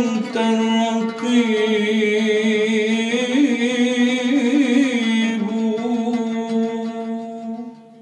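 Male nasheed singer holding a long, ornamented note with a wavering vibrato over a steady held drone. The voice stops about five seconds in, and the drone fades out near the end as the nasheed closes.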